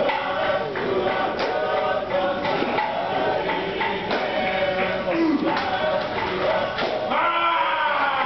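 A live group of voices singing and chanting Fijian dance music, with a few sharp percussive strikes among the singing.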